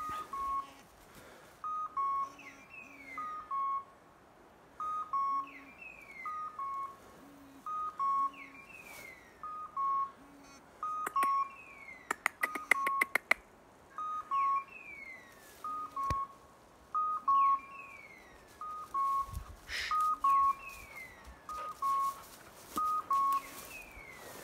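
Electronic beeper collar on a pointing English setter sounding its point-mode signal: a two-note beep with a falling chirp, repeating about once a second. A quick run of sharp clicks comes about twelve seconds in.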